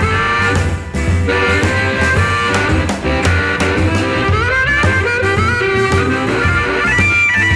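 Instrumental break of a blues song: a lead wind instrument plays a melody that bends and slides in pitch over a steady bass line and drums.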